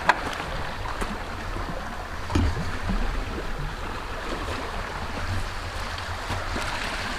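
Wind buffeting the microphone with a steady wash of water, broken by a few sharp clicks or light knocks.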